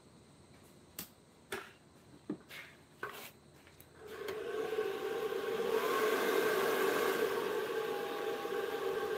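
A few light clicks and knocks, then about four seconds in an electric motor starts, builds up over a couple of seconds and runs steadily with a hum and a whirring hiss.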